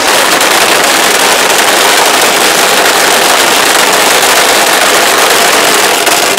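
Infiniti Q50 sedans held on two-step launch control, their exhausts giving a loud, rapid, unbroken crackle of pops and bangs as fuel ignites in the exhaust and flames out of the tailpipes. The crackle cuts off suddenly at the end.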